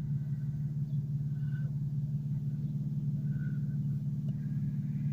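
Car engine and road noise: a steady low rumble.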